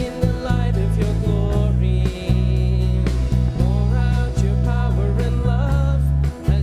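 Contemporary worship music: steady, held bass notes under a melodic line, with some singing.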